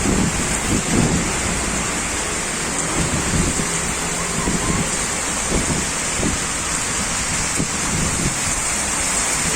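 Heavy rain falling in a steady hiss, with an irregular patter of close drops and splashes underneath.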